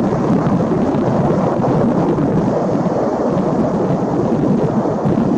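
Steady, loud rumble of a Boeing 777F's GE90 jet engines as the freighter lands: a deep, even roar of noise with no clear tone.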